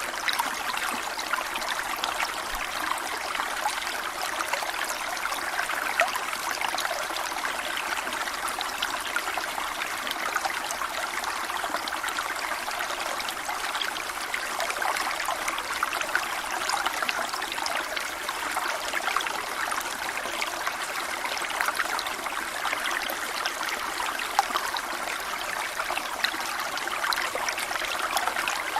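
Waterfall: water falling and splashing steadily, a constant rushing hiss with fine droplet splashes and little deep rumble.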